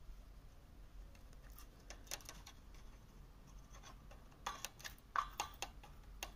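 Faint handling noise: scattered light clicks and scratches, with a few sharper clicks about two seconds in and a cluster of them in the last two seconds.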